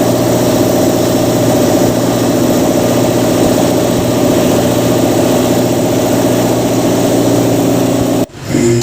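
A motor running steadily at one constant pitch, cut off abruptly near the end.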